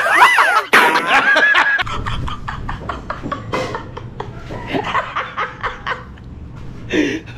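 People laughing and chuckling. It opens with a loud, high laugh that wavers up and down in pitch for about the first two seconds, then goes on in shorter, quieter chuckles.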